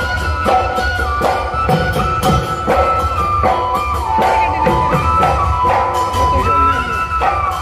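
Live traditional folk music: drums beating a steady rhythm of about two to three strokes a second under a high wind-instrument melody of long held notes that step up and down in pitch.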